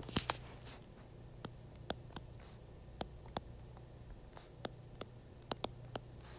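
Stylus tapping and ticking on a tablet's glass screen during handwriting, as irregular light clicks, with a louder brief rustle just after the start and a faint steady low hum underneath.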